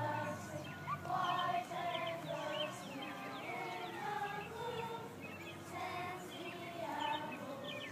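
Many children's voices overlapping at once, a mix of chatter, calls and held sung notes.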